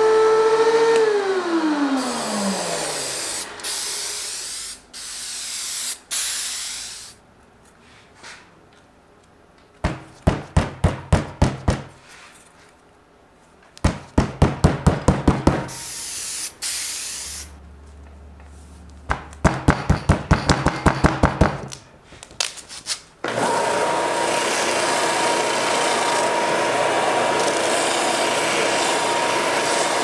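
DeWalt DW735X thickness planer spinning down after a pass, its motor hum falling in pitch over about three seconds. Midway come three runs of rapid, evenly spaced sharp strokes. About three-quarters of the way through, a bench belt sander starts and runs steadily, with a steady whine over the sanding noise, as the edge of a laminated panel is sanded.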